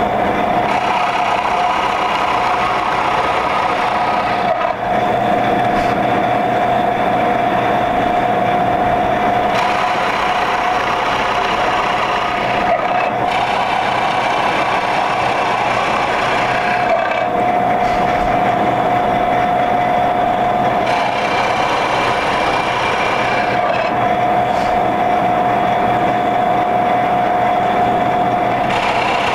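Floor-standing drill press running steadily with a constant motor whine while its spade bit bores a row of holes in a wooden 2x rail, one after another. The cutting noise changes every few seconds as each hole is bored and the bit is raised.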